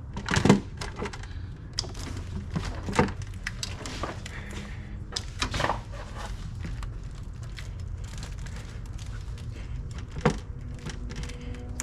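Scattered knocks, clicks and rustles of hands working a stubborn rubber hose onto its fitting in an engine bay, over a steady low background rumble.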